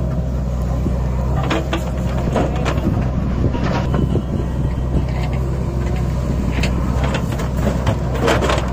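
Diesel engines of a JCB 3DX backhoe loader and a John Deere 5050D tractor running steadily, with scattered knocks and clatter of the backhoe bucket working soil. Near the end a burst of knocks comes as a bucketful of soil is dumped into the tractor's trolley.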